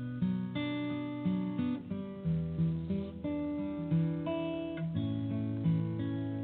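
Closing music: a plucked acoustic guitar playing a steady run of single notes and chords.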